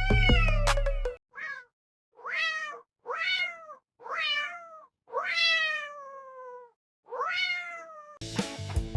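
A cat meowing about six times in a row, each meow rising then falling in pitch, the longest one near the middle. Music with a heavy bass plays under the first meow and starts again near the end.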